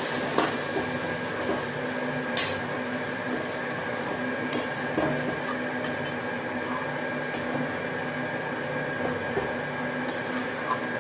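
Metal spatula stirring chicken pieces through a watery gravy in a wok, with a few sharp clinks of the spatula against the pan, the loudest about two and a half seconds in, over a steady background hum.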